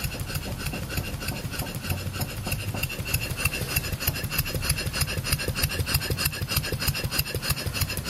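Stuart No 4 single-cylinder model steam engine running on low-pressure compressed air, a rapid, even beat of exhaust puffs and crank clatter. It is still being run in, on only a couple of pounds of air pressure.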